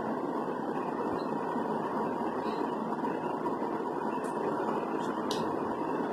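Steady, even background noise with no speech, and a few faint light clicks in the second half.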